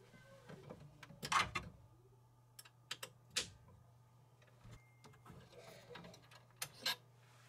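Small clicks and taps of hands handling parts inside a 3D printer's chamber. The loudest cluster comes about a second and a half in, more follow around three seconds, and two come near the end, over a faint steady hum.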